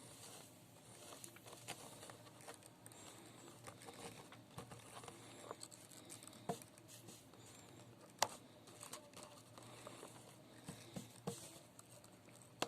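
Faint, scattered light taps and clicks of small tools and parts being handled during soldering work, with one sharper click about eight seconds in.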